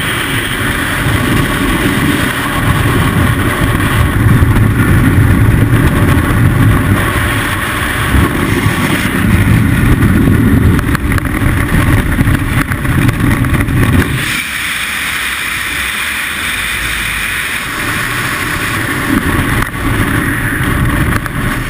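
Loud wind buffeting the helmet camera's microphone in skydiving freefall. The low rushing drops sharply about two-thirds of the way through, as the parachute opens and the fall slows.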